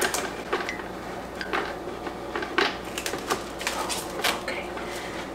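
Plastic cling wrap being pulled and handled, crinkling in a run of irregular sharp clicks and crackles.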